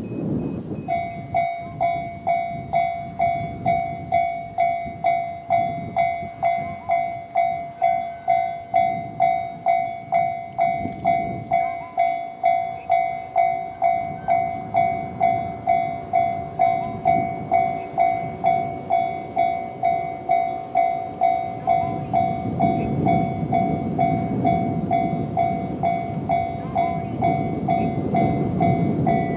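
Japanese level-crossing alarm with the JR standard electronic bell tone, starting about a second in and ringing steadily about twice a second. From about 22 seconds in, a JR 115-series electric train runs past over the crossing, its wheels clacking, while the alarm keeps ringing.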